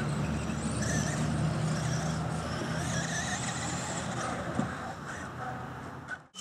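Radio-controlled model cars running on a dirt track, their motors whining up and down over a steady low hum; the sound cuts off abruptly near the end.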